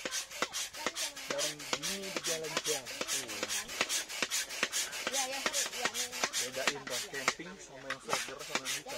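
Manual coffee grinder being cranked, a rhythmic rasping grind of about three to four strokes a second.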